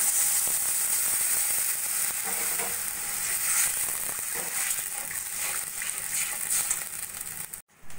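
Water poured into hot oil and fried olives in a kadai, sizzling and hissing, while a metal spatula stirs through the bubbling mixture. The sound breaks off for a moment near the end.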